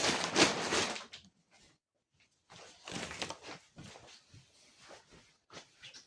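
Plastic vacuum-pack sheeting being torn by hand: a loud rip for about the first second, then after a short pause irregular crinkling and rustling of the plastic.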